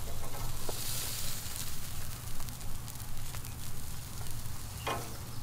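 Thick ribeye steaks sizzling on a grill over hot coals, with scattered small pops and crackles and one brief louder noise about five seconds in.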